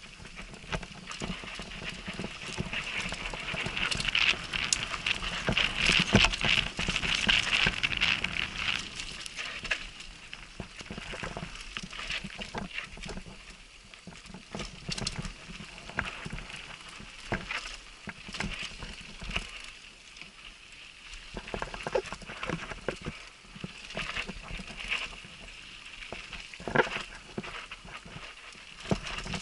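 Downhill mountain bike rolling fast over a dry dirt track: tyres crunching and hissing on dirt and gravel, with frequent clattering knocks from the bike over bumps, heard through a helmet-mounted camera. The noise is loudest for several seconds near the start, then eases with scattered sharp knocks.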